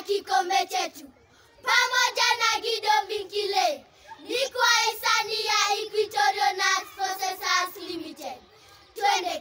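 A group of schoolchildren singing together in unison, unaccompanied, in short phrases with brief pauses between them.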